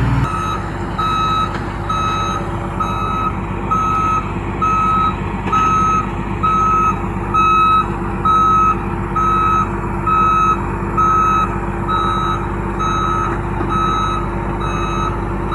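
Hitachi 350-class excavator's travel alarm beeping steadily, about two beeps a second, over its diesel engine running as it travels onto the lowboy trailer.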